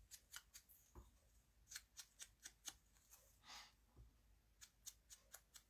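Near silence with faint, scattered ticks and a brief rustle of cardstock poinsettia pieces being handled.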